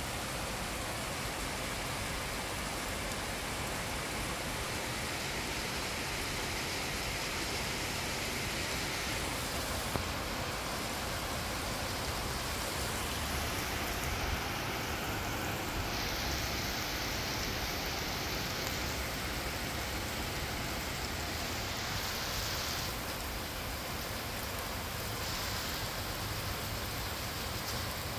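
Torrential rain falling steadily: a dense, even hiss of a heavy downpour.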